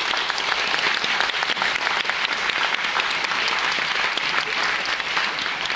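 Audience applauding: many hands clapping at once, a dense crackle of claps that holds steady.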